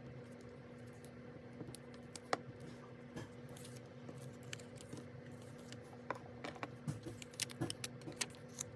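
Scattered light clicks and taps of paper and stationery being handled while working in a planner, growing busier near the end, over a steady low hum.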